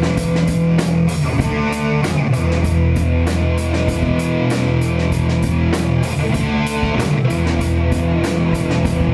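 Live rock band playing the song's opening: a sustained electric guitar riff over drums, with a steady cymbal beat of about four strokes a second.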